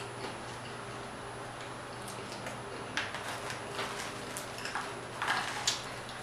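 Close-miked eating sounds: soft chewing and mouth clicks, with short crisp crackles about three seconds in and again around five seconds in as crunchy fried croaker is broken apart by hand.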